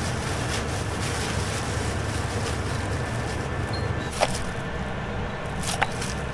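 Steady low hum of kitchen equipment under the rustle of a plastic bag of fries being handled, with two sharp clicks about four and six seconds in.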